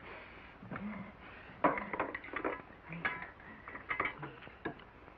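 Dishes and utensils clinking and knocking as food is served out at a table, a string of short irregular clinks.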